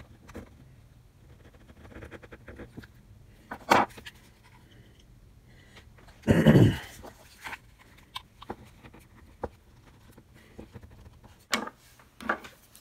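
Serrated knife scraping and prying at the seam of a bloated Pocket Juice power bank's plastic case, with scattered clicks and scrapes of the plastic. There is one sharp louder click a little under four seconds in, and a louder breathy sound about six seconds in.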